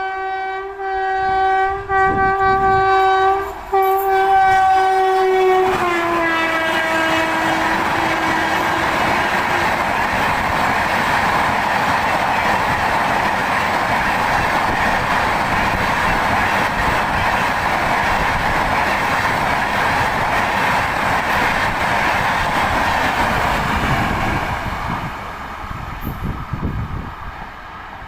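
Amrit Bharat Express locomotive sounding its horn in a long blast with two brief breaks, the pitch dropping as it passes about six seconds in. The steady noise of the train's coaches running by follows and fades near the end.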